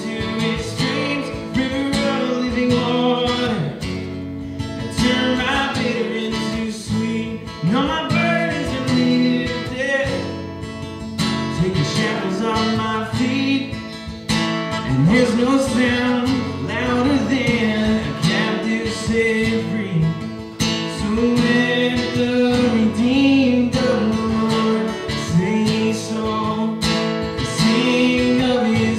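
A male worship singer singing with a strummed acoustic guitar, over a sustained ambient pad from an Aerospace Audio Atmosphere pedal holding steady tones in the background.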